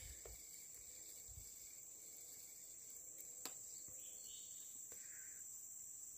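Faint, steady high-pitched insect chirring, typical of crickets, with one faint click about three and a half seconds in.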